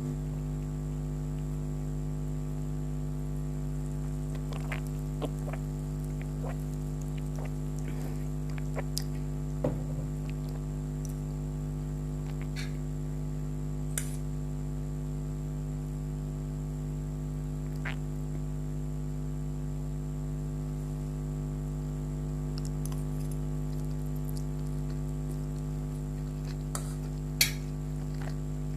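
Steady electrical hum made of many steady tones, with scattered faint clicks and mouth smacks from someone eating noodles.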